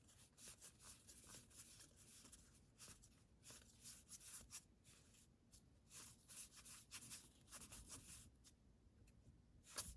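Faint, irregular rustling and sliding of trading cards being flipped through one by one.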